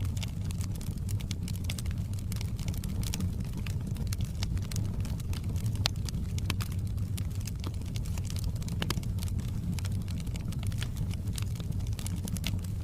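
Wood fire burning in a fireplace: a steady low rumble of flames with frequent irregular crackles and pops of the burning wood.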